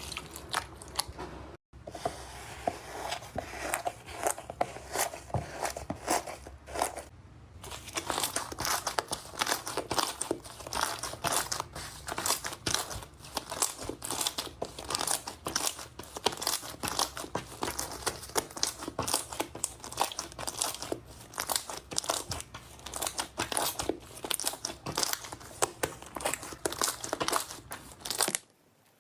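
Slime being squeezed, stretched and poked by hand, giving a dense, irregular run of crackles and small pops. There is a brief break about two seconds in and a quieter moment around seven seconds.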